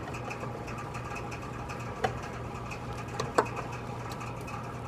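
Channel-lock pliers crimping a copper refrigerant line onto a condenser's brass service-valve stub, with three sharp metal clicks, one about two seconds in and two close together a little after three seconds, over a steady low hum.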